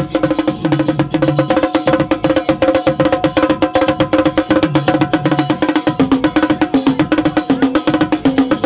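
Fast live drumming on bongos, a drum and a cymbal played with sticks: a dense run of rapid strokes over pitched dance music whose notes change about six seconds in.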